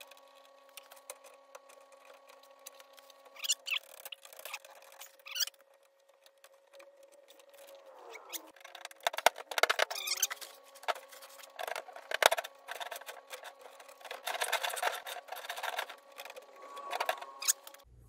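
Irregular metallic clicks, scrapes and rattles of stranded copper ground wire being handled and worked into an electrical panel, busier in the second half, over a faint steady hum.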